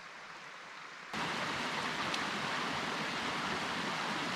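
Shallow mountain creek rushing over rocks, a steady even rush that comes in abruptly about a second in, after a faint hiss.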